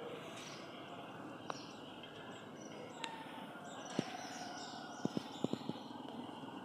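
Steady outdoor background noise with faint bird chirps, broken by a handful of sharp clicks: single ones spaced a second or so apart, the loudest about four seconds in, then a quick run of four about a second later.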